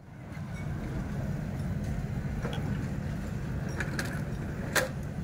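Outdoor street-market ambience: a steady low rumble fading in at the start, with scattered light clicks and one sharper clack near the end.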